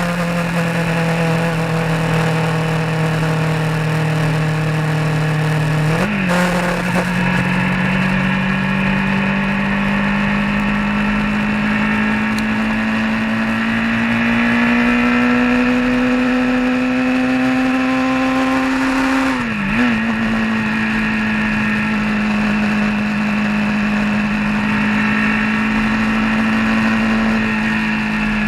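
A road vehicle's engine running steadily while under way, its pitch climbing slowly, with two brief breaks in pitch, one about six seconds in and one near the end.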